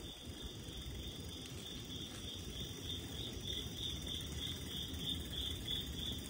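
Crickets chirping in a steady, evenly pulsing high trill, over a low rumble from the bicycle rolling along.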